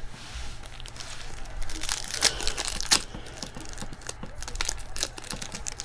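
Foil trading-card pack being handled and torn open, the wrapper crinkling with a run of sharp crackles and rips, the strongest a little after two seconds and near three seconds.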